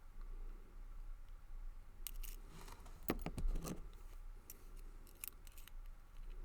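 Light metal clicks and short scrapes of a hook pick and tension wrench working the pins inside a brass pin-tumbler padlock, bunched from about two seconds in to near the end, loudest around the middle.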